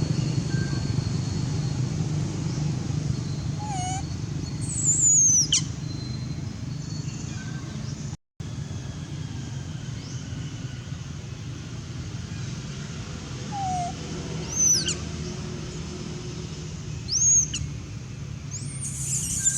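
Baby macaque crying in short, high-pitched squeals that fall in pitch, a few times, over a steady low rumble.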